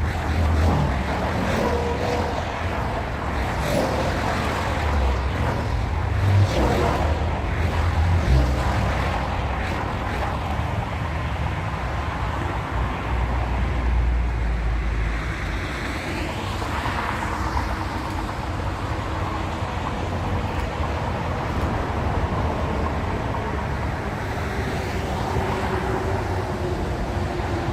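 Train rolling past with a steady low rumble, with a few sharp knocks in the first several seconds.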